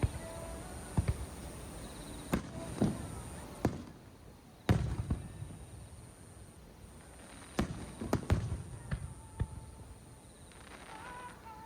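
Aerial fireworks shells bursting in an irregular series of booms and cracks, each followed by a low rumbling echo. The loudest bang comes a little before halfway.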